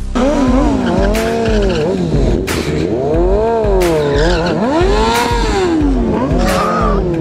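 Motorcycle engine revving up and down over and over, its pitch climbing and dropping in smooth swells about once a second, with short rushes of noise in between.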